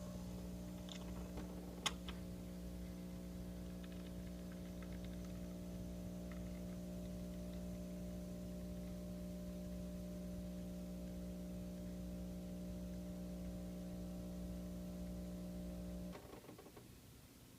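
Miele built-in coffee machine running with a steady, even hum while it makes a coffee, with a single sharp click about two seconds in. The hum cuts off suddenly near the end as the machine finishes.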